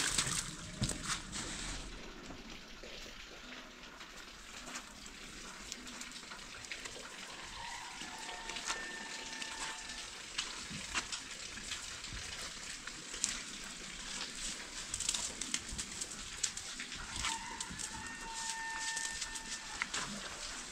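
Hands brushing and swiping wet snow off a car's roof, windows and bodywork, many small scraping and crunching ticks. Twice a held tone, lasting a second or two, rises above it: about eight seconds in and again about seventeen seconds in.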